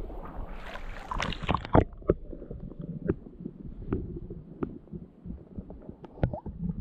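Creek water splashing and gurgling against an action camera as it goes under, loudest in the first two seconds. After that the sound is muffled underwater noise with scattered clicks and knocks.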